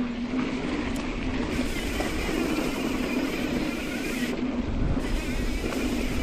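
Mountain bike rolling at speed on a dirt trail: steady tyre noise on the dirt.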